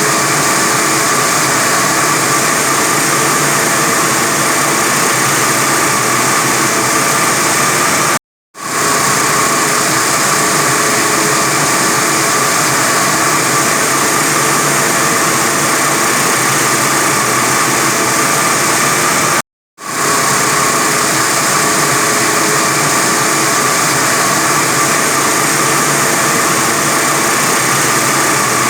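A 45 kW diamond wire saw running steadily as it cuts through reinforced concrete, a loud machine whine with a high hiss. The sound drops out abruptly twice, for a fraction of a second each time, and fades back in.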